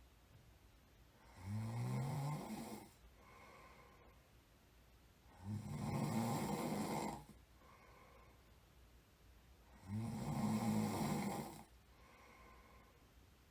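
A person snoring in sleep: three loud snores about four seconds apart, each followed by a softer breath.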